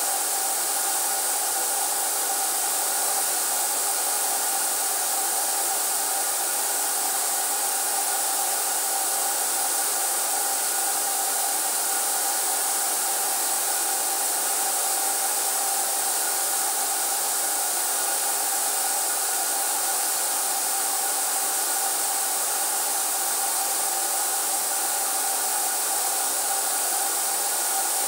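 HVLP paint sprayer's turbine running steadily, a constant whir with a hiss of air through the spray gun.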